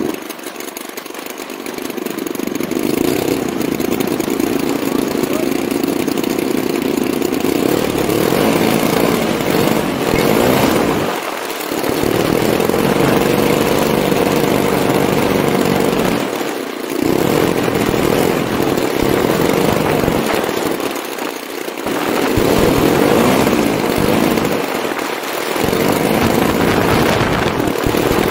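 Twin DLE-55RA single-cylinder two-stroke petrol engines of a large RC warbird model running close to an onboard camera. The throttle eases back briefly about every four to five seconds and then opens again, and the engines are softer in the first two seconds.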